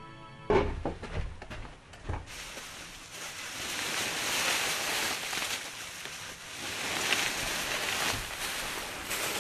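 Plastic wrapping on insulation rolls rustling and crinkling as the rolls are handled and pulled from their bag, after a few dull thumps in the first two seconds.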